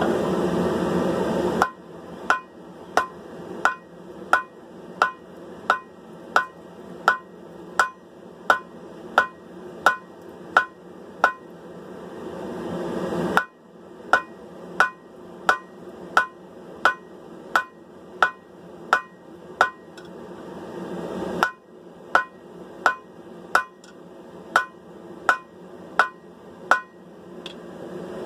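Hammer blows on hot steel over an anvil, about a blow and a half a second, drawing out and narrowing a sword blade to put in a distal taper. A steady roar sits underneath, loudest at the start, and the runs of blows break off abruptly twice.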